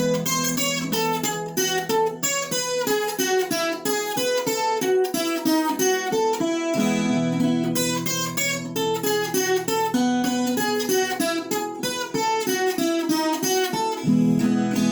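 Viola caipira playing an instrumental break of quick plucked melody runs with no singing. The low strummed accompaniment drops out twice for a few seconds and comes back.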